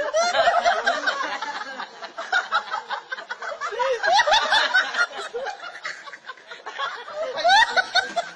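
People laughing hard, in short fits whose pitch swoops up and down.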